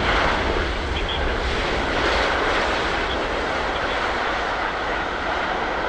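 Jet engines of a landing Boeing 777-200LR, a steady rushing noise with a deep rumble underneath, easing slightly over the few seconds.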